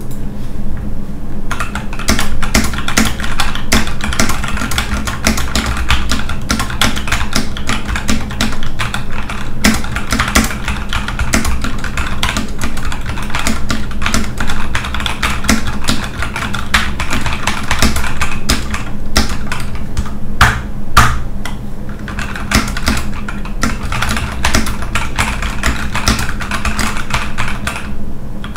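Fast typing on a GK61 60% mechanical keyboard: a dense run of key clicks that starts about a second and a half in and stops just before the end. The space bar rattles on its presses.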